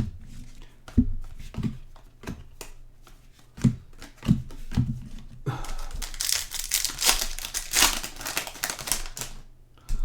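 Trading cards being handled and flicked through with scattered sharp clicks and taps, then, from about halfway, a trading card pack wrapper crinkling and tearing for several seconds as the next pack is opened.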